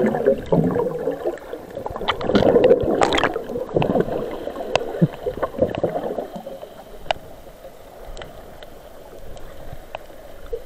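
Muffled underwater sound of a snorkeller's movements: water gurgling and rushing with bubbles, loudest in the first few seconds and fading to a quieter hiss, with scattered sharp clicks.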